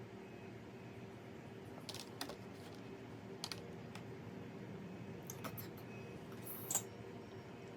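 A few scattered light clicks and taps of tableware and food packaging being handled at a meal, the loudest pair a little before the end, over a steady faint hum.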